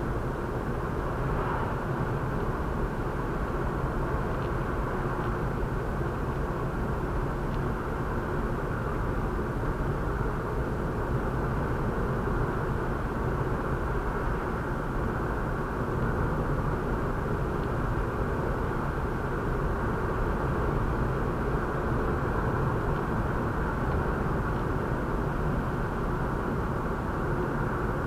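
Steady driving noise of a car heard from inside its cabin: tyres rolling on the road and the engine running, even in level throughout.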